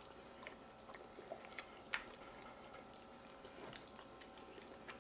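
Faint eating sounds: quiet chewing with small clicks of plastic forks against foil takeout trays, one sharper click about two seconds in.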